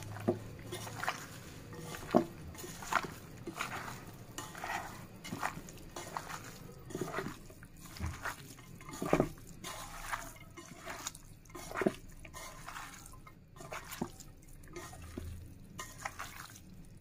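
A bare hand squeezing and kneading raw beef with chopped onion, ginger-garlic paste and ground spices in a nonstick pot to marinate it: irregular wet squelches, about one or two a second.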